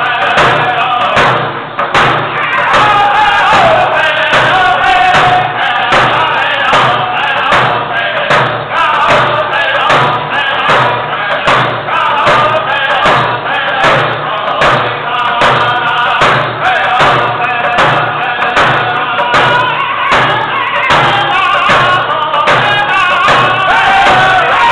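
Four men singing a powwow hand drum song together, each beating a frame hand drum with a stick in a steady, even beat.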